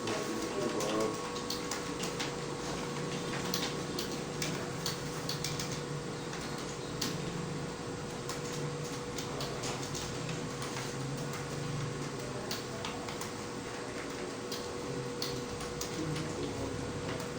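Computer keyboard keys clicking in fast, irregular touch-typing, over a steady electrical hum.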